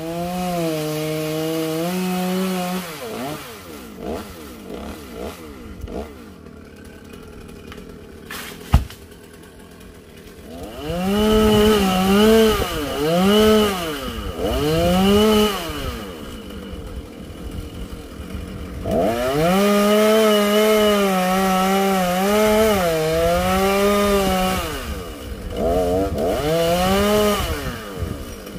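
Two-stroke chainsaw engine running high at first, then dropping to a lower, quieter run, then revving in repeated rising-and-falling surges. A single sharp knock comes about nine seconds in.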